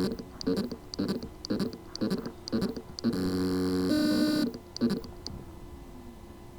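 Hard drive spindle motor trying to spin up: it pulses about twice a second, with a longer buzzing tone around three seconds in, then fades out. The motor spins but cannot reach full speed, the symptom of loose motor contacts on the drive's circuit board.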